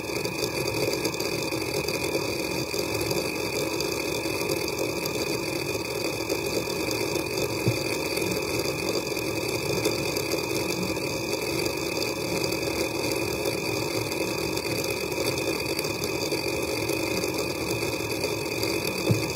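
Hitachi Travelstar HTS421240H9AT00 2.5-inch 4200 RPM IDE laptop hard drive doing random reads: the head actuator seeks rapidly and without pause, a dense, even chatter over a steady high whine.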